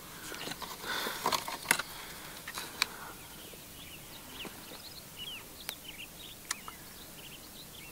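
Rustling and a few sharp clicks as a hunter handles his gear and raises binoculars, then small birds chirping in short, scattered calls.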